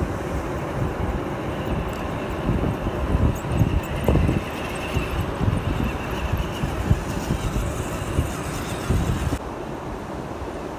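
Wind buffeting the microphone over breaking surf, with a faint high whine from an RC crawler's electric motor and gears through the middle. The sound gets quieter a little before the end.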